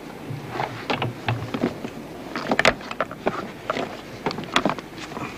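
Irregular knocks and clunks of diving gear and an underwater camera housing being handled on a boat's wooden deck, with a low hum in the first second and a half.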